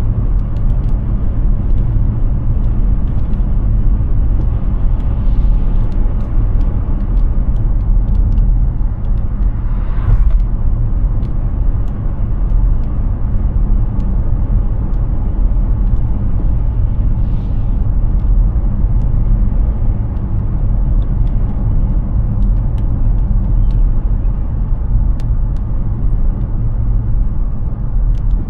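Steady low road and tyre rumble of a Hyundai Ioniq 6 electric car driving at highway speed, with no engine note. Scattered faint ticks sit over it.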